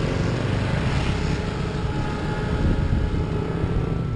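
Steady low engine rumble of motorcycles and street traffic close by, with no sudden events.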